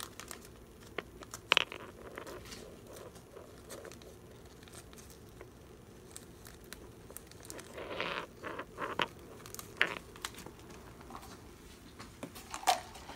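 Clear plastic binder pocket pages crinkling and rustling as they are handled and turned, with scattered sharp clicks and a louder spell of crinkling about eight seconds in.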